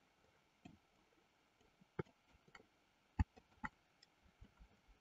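Faint, scattered clicks of a computer mouse and keyboard, about six in all, the loudest a little past three seconds in.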